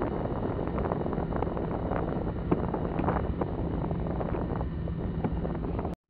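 Wind buffeting an outdoor microphone: a gusty, crackling rumble over a steady low drone. It cuts off abruptly near the end.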